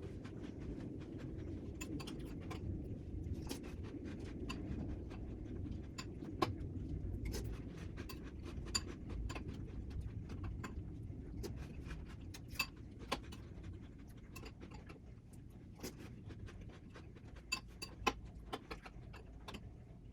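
Eating a bowl of crunchy cereal in milk: scattered sharp clicks of a spoon against the bowl over a low handling and chewing rumble. The clicks come irregularly, with the louder ones about six seconds in, around twelve to thirteen seconds in, and near the end.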